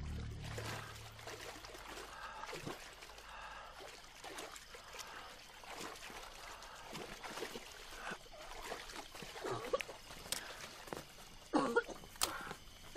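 Faint trickling and splashing water as people wade through a river, with a few louder short sounds near the end.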